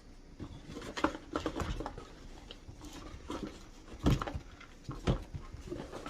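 Supplement containers and their packaging being handled and set down: irregular clicks, rustles and knocks, with louder thumps about a second in and about four seconds in.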